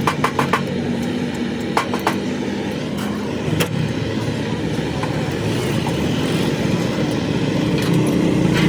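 A motor engine running steadily, with several sharp clicks or knocks in the first two seconds and one more a little after three seconds.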